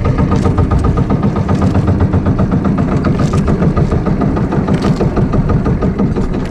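Small outrigger boat's engine running steadily with a fast, even pulsing, pushing the boat along at trolling speed.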